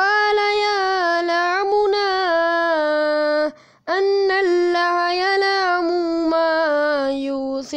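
One voice reciting the Quran in Arabic in a melodic, drawn-out chanting style, with long held notes that waver in pitch. There are two long phrases with a short breath pause about three and a half seconds in.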